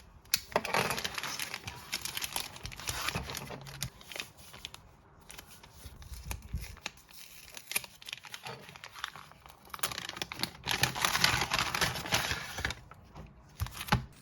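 Plastic packaging being crinkled and torn open by hand as an album is unwrapped, in two longer bouts with scattered small crackles and clicks between them.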